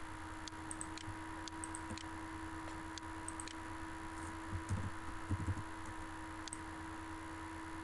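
Faint, scattered computer mouse clicks, about a dozen, over a steady electrical hum. Two soft low sounds come a little past halfway.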